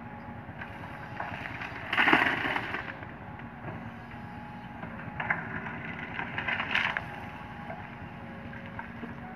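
Sumitomo SH130LF hydraulic excavator running steadily while digging soil and gravel. Two harsh scraping, rattling bursts rise over the engine, a short loud one about two seconds in and a longer one from about five to seven seconds.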